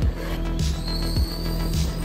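Background music with a steady kick-drum beat and sustained bass notes.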